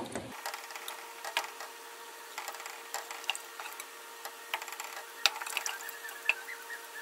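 Wooden spatula stirring, scraping and tapping in a metal pressure cooker as lumps of ghee melt in the heating pot, with scattered small clicks and crackles. A faint steady hum runs underneath.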